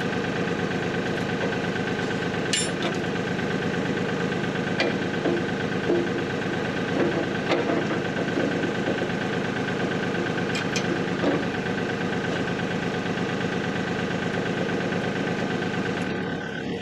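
Bobcat CT2040 compact tractor's diesel engine idling steadily, with a few light metal clinks as the box blade's three-point hitch pins and linkage are handled.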